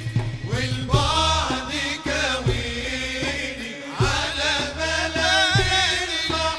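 Male vocal ensemble singing an Arabic devotional song (inshad) in wavering, ornamented lines over hand-drum strokes.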